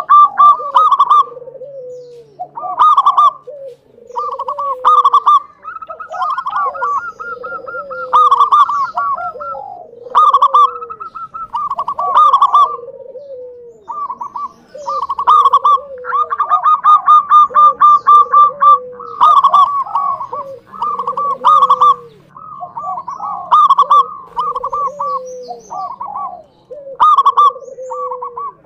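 Local zebra dove (perkutut) cooing in full song: phrases of quick, high cooing notes over lower, falling coos, repeated again and again with short pauses between.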